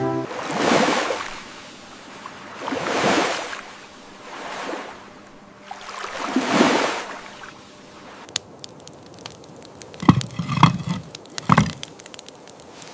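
Ocean waves washing ashore, four swells a couple of seconds apart. From about eight seconds in, a campfire's crackling takes over, with a few louder knocks near the end.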